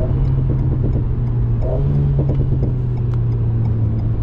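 Alpine A110S's 1.8-litre turbocharged four-cylinder engine heard from inside the cabin as the car slows for a corner, its steady note briefly rising in pitch about halfway through.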